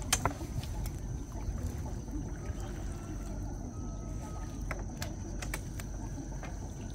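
Water trickling and splashing beside a small boat, with a few sharp knocks, over a steady low rumble.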